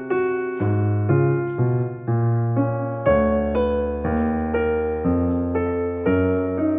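Background piano music: single notes played at about two a second over held bass notes, each note fading after it is struck.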